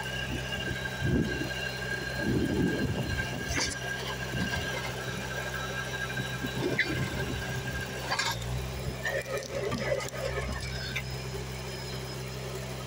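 Mini well-drilling rig running steadily: a low machine hum with a steady high-pitched squeal over it, and a few sharp metal knocks, one about 3.5 seconds in and one about 8 seconds in.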